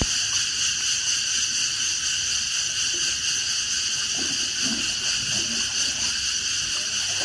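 Steady, high-pitched chorus of forest insects, an unbroken drone in several stacked pitches, with faint water splashing from swimmers beneath it.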